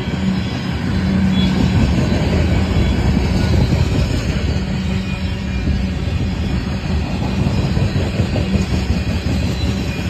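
Tank cars of a long freight train rolling past: a steady rumble of steel wheels on rail.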